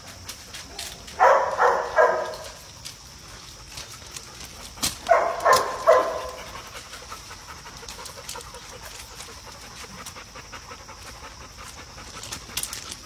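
Labrador retrievers barking in two short bursts of about three barks each, about a second in and again about five seconds in, with light scattered ticking between.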